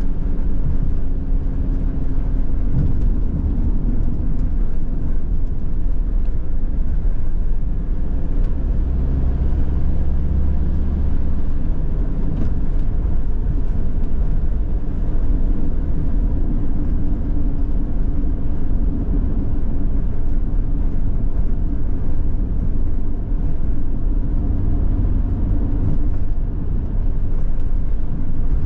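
A van driving along at a steady speed, heard from inside the cab: a continuous low rumble of engine and tyre noise. The rumble deepens for a couple of seconds about nine seconds in.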